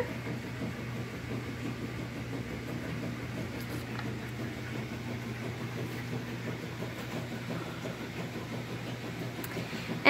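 Refrigerator running: a steady low hum over a faint even hiss.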